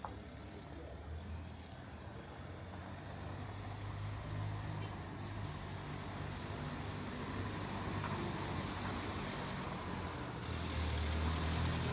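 A motor vehicle's engine running close by, a low steady rumble that grows gradually louder and steps up near the end as it comes nearer.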